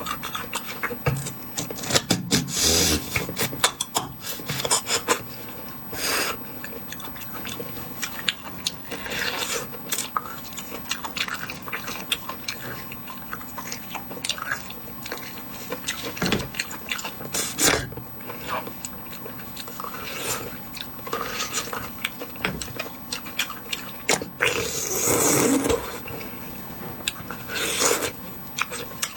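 Close-miked eating of bone marrow: wet slurping and sucking at the bones, with chewing and small sharp clicks, and one longer suck near the end.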